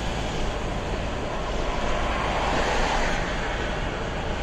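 Steady road and wind noise inside a car's cabin at highway speed: tyres on asphalt and air rushing past, swelling a little about three seconds in as another vehicle passes alongside.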